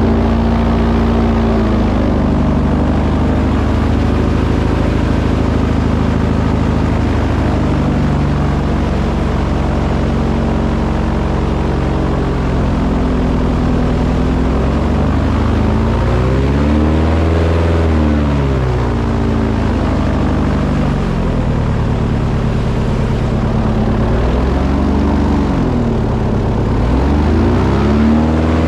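An engine running steadily close by, revving up and dropping back three times in the second half.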